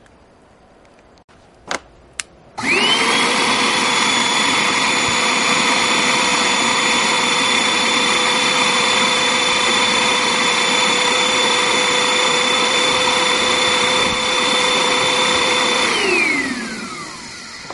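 Two clicks, then an electric motor starts, spins up to speed and runs steadily with a high whine. Near the end it is switched off and winds down, its pitch falling.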